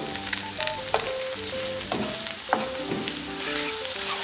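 Scrambled eggs sizzling in a frying pan, with a spatula scraping and stirring them a few times. Soft background music with a melody runs underneath.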